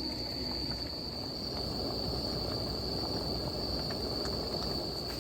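Crickets trilling steadily in one unbroken high tone over a constant low rushing noise.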